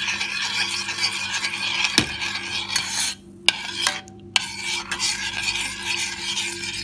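A metal ladle stirring melting margarine and butter in a stainless steel pot, scraping against the pot with a few sharp clinks. The scraping drops out briefly twice around the middle.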